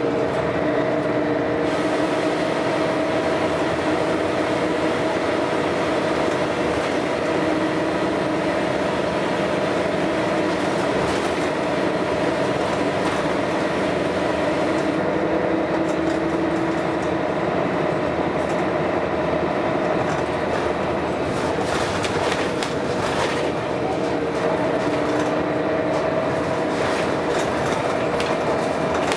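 Scania L113CRL bus engine running under load, with a steady drone and whining tones that come and go, and scattered rattles through it.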